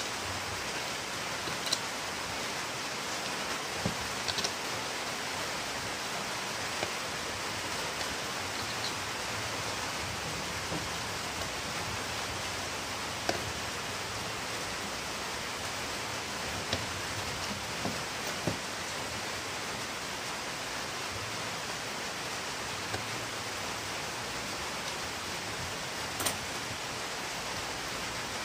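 Steady, even hiss with scattered small clicks and taps from a screwdriver and plastic parts as a smart lamp speaker's base is screwed and fitted back on.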